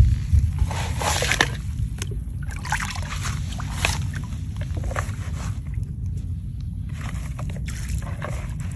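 Water sloshing and splashing in a plastic basin in several short bursts, over a steady low rumble.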